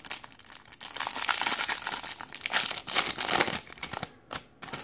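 Foil wrapper of a Topps Platinum football card pack crinkling and tearing open in the hands, a dense crackle for about three seconds, then a few short crinkles near the end.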